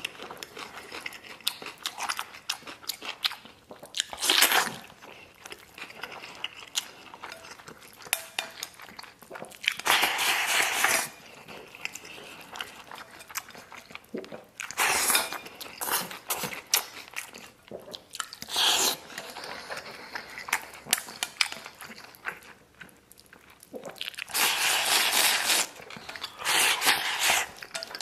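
Close-up eating of braised pork belly and rice with chopsticks from a ceramic bowl: wet chewing and small clicks of chopsticks on the bowl, broken about six times by a loud second-long slurp as rice is shovelled from the rim into the mouth.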